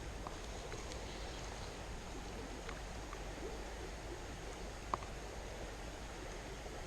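Faint steady outdoor background noise, with a sharp click at the very start and a small tick about five seconds in.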